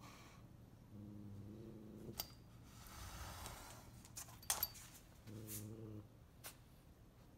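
A cat pawing at a cockroach on a wooden floor: a few sharp taps, the loudest about four and a half seconds in, and a brief rustle. Two short low hums, each under a second long, come about a second in and again near the sixth second.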